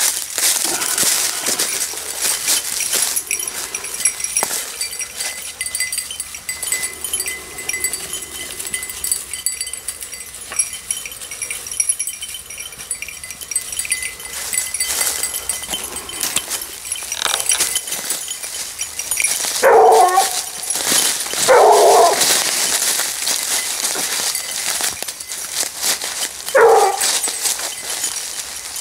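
Basset bleu de Gascogne hounds giving tongue while working a hare's scent: three separate bays of about a second each in the second half. At the start there is a crackling rustle of dry leaf litter underfoot.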